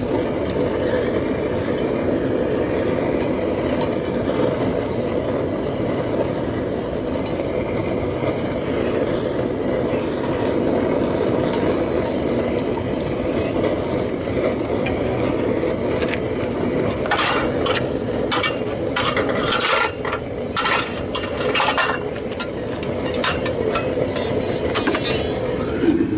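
Propane burner of a homemade foundry furnace running steadily. About two-thirds of the way through comes a quick run of metal clinks and scrapes, a tool working metal out of the crucible.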